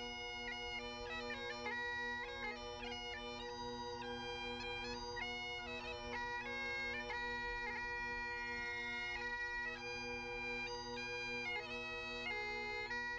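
Bagpipe music: a quick, ornamented melody played over steady, unbroken drones.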